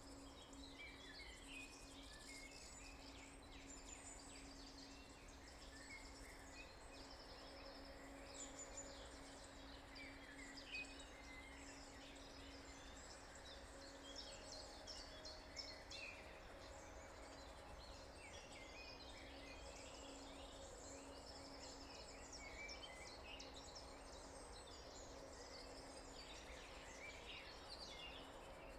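A dawn chorus of several songbirds, faint, with many overlapping short chirps and trills throughout, over a steady low hum.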